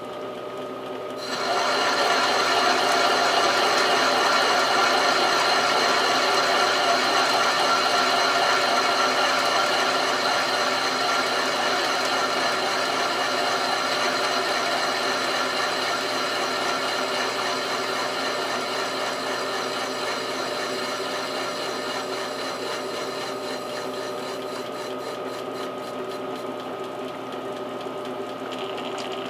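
A metal lathe running under power, its drive and gears whirring steadily, with a tool bit turning a Morse taper on the spinning metal workpiece. The sound gets louder about a second in, as the cut takes hold and chips come off.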